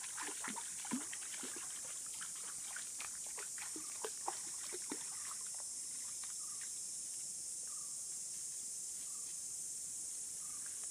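A German shepherd's legs splashing and sloshing through shallow river water in quick, irregular splashes for the first five seconds or so, then stopping. A steady high insect drone runs underneath.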